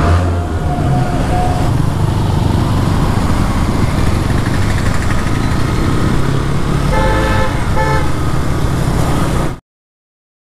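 Motorcycle engine running steadily under way, with road and wind noise. A horn gives two short toots about seven seconds in, and near the end the sound cuts out completely.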